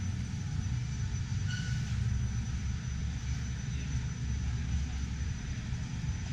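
Steady low rumble of background noise in a large exhibition hall, with no single distinct source standing out.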